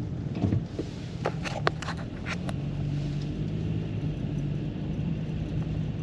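Car engine running steadily at low speed, with a few short sharp clicks about one to two and a half seconds in.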